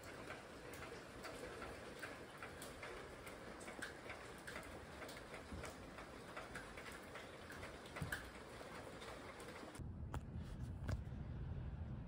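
Light rain: irregular soft ticks of raindrops over a faint hiss. About ten seconds in it gives way to a low steady rumble.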